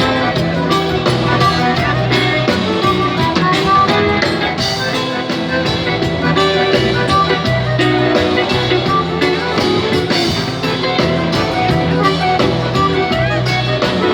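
Live band music: an instrumental passage with no singing, steady and loud, with a continuous beat.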